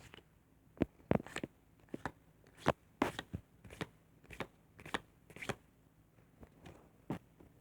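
Pokémon trading cards being handled and flicked through by hand: a series of short, sharp card snaps and flicks at an irregular pace, about one or two a second.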